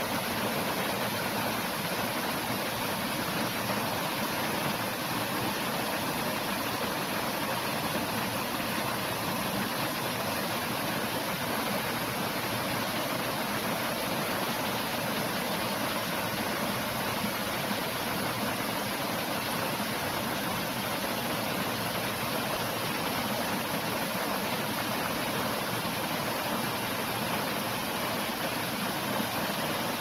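Mountain stream rushing and splashing over boulders in a steady, unbroken hiss.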